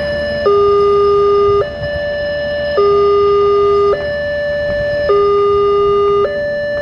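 Railway level-crossing warning alarm sounding a steady electronic two-tone signal: a low tone and a higher tone take turns, each held for about a second. Under it is the low rumble of the passenger train rolling through the crossing.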